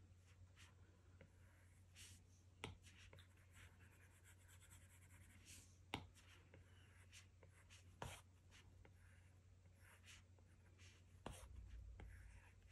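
Faint taps and scratchy strokes of an Apple Pencil's plastic tip on an iPad Pro's glass screen, with a few sharper taps, the clearest about six seconds in, over a low steady hum.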